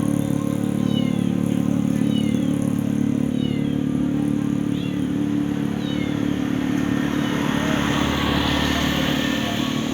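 A motor vehicle engine running steadily, with short high falling chirps over it during the first part and a rushing noise that swells and fades near the end.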